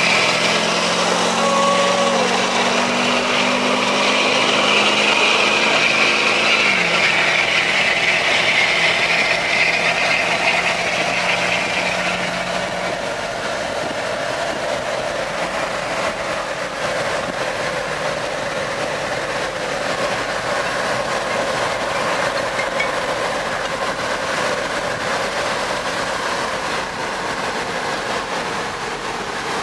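Road and wind noise inside the cab of a GMC Sierra pickup driving at highway speed. A low engine hum drops in pitch about seven seconds in, then fades under the steady tyre and wind noise.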